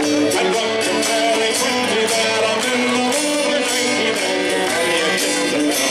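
Music with strummed guitar and held melody notes over a regular rhythm.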